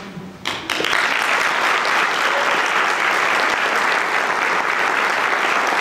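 Audience applause after a handbell piece: a short hush, then clapping breaks out just under a second in and carries on steadily.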